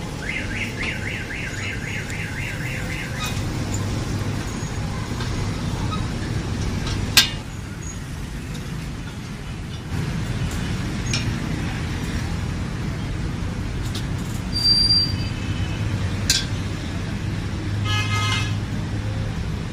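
Street traffic running steadily, with a car alarm's rapid repeating warble, about four cycles a second, for the first three seconds. A few sharp clicks come through, and a short toot near the end.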